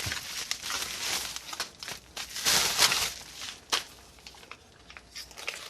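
Packaging being handled and crinkled: rustling, with the loudest stretch of crinkling a little past the middle and a few sharp clicks.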